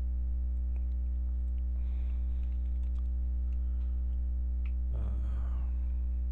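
A few scattered computer keyboard and mouse clicks as AutoCAD commands are entered, over a steady low electrical hum. A short, louder noise comes about five seconds in.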